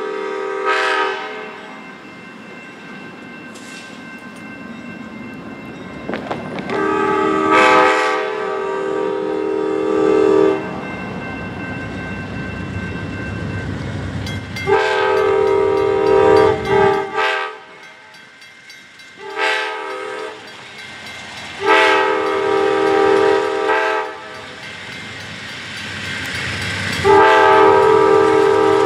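Amtrak GE Genesis diesel locomotive's multi-chime air horn sounding long, long, short, long: the signal for a grade crossing. Another long blast begins near the end, and one ends just after the start. The locomotives' engines rumble low beneath it as the train pulls away from the station.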